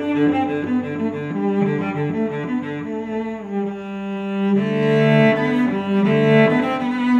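Background music: a slow melody on low bowed strings, several sustained notes at once, swelling louder about halfway through.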